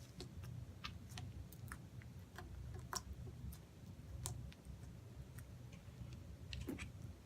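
Snow slime (slime mixed with instant snow) being handled, giving small irregular clicks and pops over a faint low hum.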